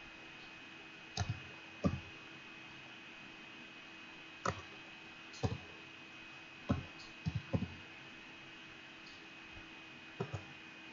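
Computer keyboard keys tapped one at a time while typing coordinates: about ten separate sharp clicks, some in quick pairs, spaced unevenly. A faint steady electrical hum runs underneath.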